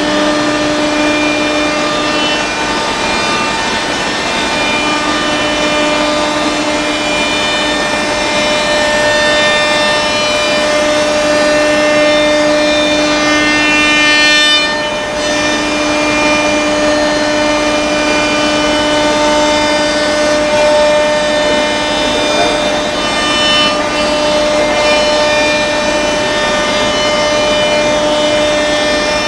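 BIMA 810 CNC machining centre routing a plywood panel: the router spindle runs with a steady high whine of several held tones over the rushing noise of the cutter in the wood. The sound dips for a moment about halfway through.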